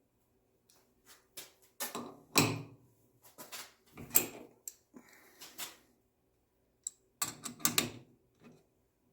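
Heavy metal lathe parts being handled and fitted together: a series of irregular clunks and short scrapes, metal on metal, loudest twice in the first half.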